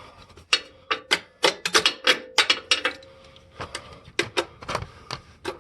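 A 1/2-inch ratchet with an extension clicking in quick, irregular runs of sharp clicks as it backs out a loosened oil drain plug.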